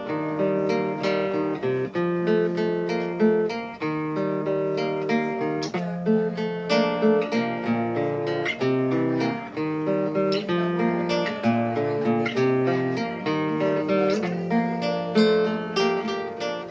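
Solo classical guitar, tuned to A=432 Hz, playing a slow melody of plucked notes over ringing chords.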